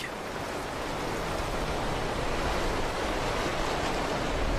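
Steady rushing of water, an even hiss that swells slightly over the seconds.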